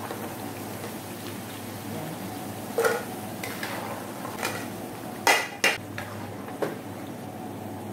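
Stainless steel slotted ladle scraping and clinking against a frying pan as fried banana slices are scooped out of the oil. There are a few sharp knocks, the loudest two close together about five and a half seconds in.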